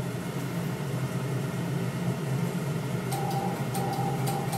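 Alpha 77SX linear amplifier running with a steady hum and fan noise. About three seconds in, a tone starts beeping on and off in short pulses with small clicks as the transmitter is keyed and the amplifier puts out around 5 kW into a dummy load.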